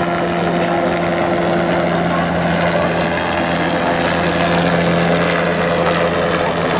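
Sightseeing-type helicopter flying overhead: a steady drone of engine and rotor with an even hum that holds level throughout.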